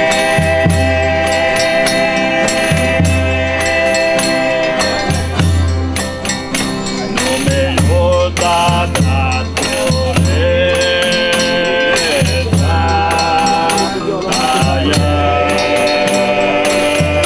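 Folia de Reis folk music: voices singing long held notes together over a tambourine's steady jingling and a repeating low beat, the sung notes shifting pitch every few seconds.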